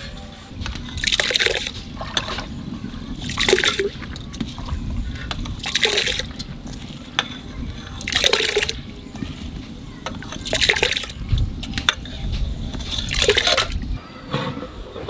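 Handfuls of soaked rice dropped into a large aluminium pot of water, each landing with a short splash, six times at even intervals of about two and a half seconds. A steady low rumble runs underneath.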